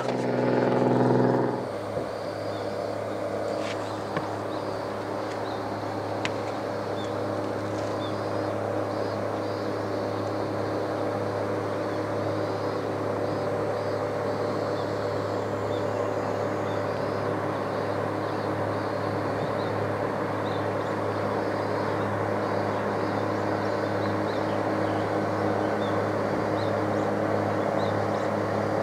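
A motor running steadily at one constant pitch, with faint short high chirps scattered above it.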